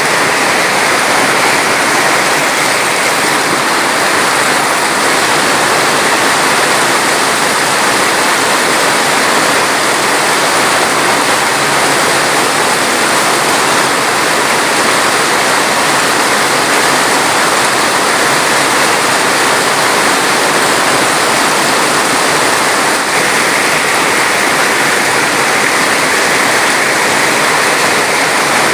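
Rushing water, steady and unbroken.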